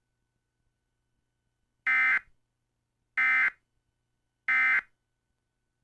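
Emergency Alert System end-of-message data signal: three short, identical bursts of digital tones about a second and a quarter apart, which close out the flash flood warning broadcast.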